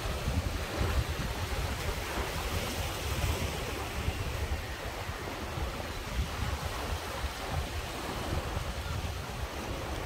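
Sea surf washing and churning over a rocky shore, a continuous rush of water with no single big break standing out. Wind buffets the microphone, adding a gusting low rumble.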